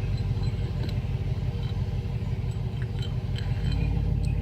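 Truck engine idling steadily, with a few faint metallic clicks of a hex key undoing a bicycle stem bolt.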